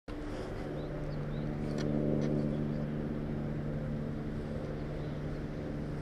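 Steady low hum of an engine or motor running at constant speed, with a few faint high chirps and short ticks about two seconds in.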